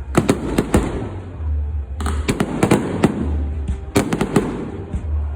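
Fireworks display going off in quick volleys of sharp bangs, several per volley, with a new volley about every two seconds.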